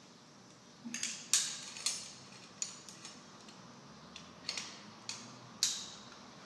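Metal carabiners and a rescue pulley clinking and clicking against each other as rope-rescue rigging hardware is handled: about half a dozen sharp, separate metal clinks spread over several seconds.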